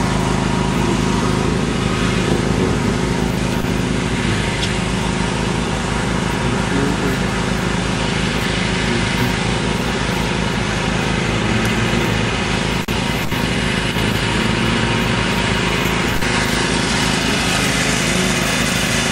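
Small petrol engine running steadily at an even speed, with no change in pitch or level.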